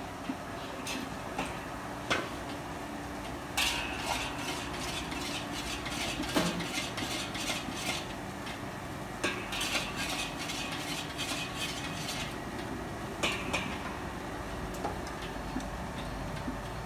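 Metal ladle scraping and clinking against a large steel wok as fried rice is stirred. It comes in two runs of quick strokes, the first a few seconds in and the second past the middle, with a few single knocks, over a steady low hum.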